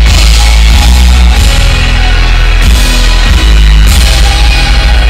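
Live rock music played very loud through a concert sound system, heard from within the crowd, with heavy sustained bass notes.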